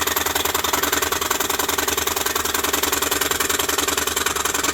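DeWalt scroll saw running steadily, its blade stroking up and down fast with an even rattle as it cuts along a line in a piece of wood.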